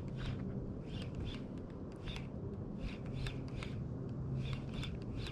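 Shimano Stradic 2500 HG spinning reel being cranked in short, irregular spurts, giving quick clicky whirs about twice a second, over a steady low hum.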